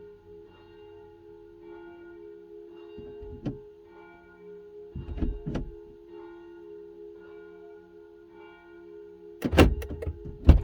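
Church bells ringing in a steady, regular pattern, with several heavy thuds about three seconds in, around five seconds in, and loudest near the end.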